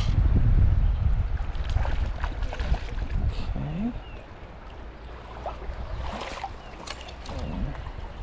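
Wind buffeting the microphone over the steady rush of a fast-flowing river, with small splashes. The wind rumble eases about four seconds in.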